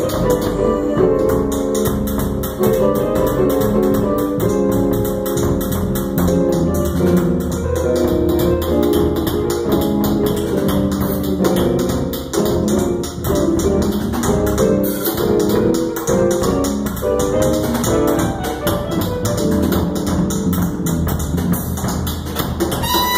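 A band rehearsing a jazz-fusion tune: keyboard chords over a fast, steady percussion pattern, played without a break.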